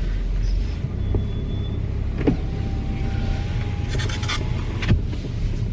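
Car power window motor running with a steady whine for about two and a half seconds and stopping with a knock, over the low rumble of the car, with a few clicks before it.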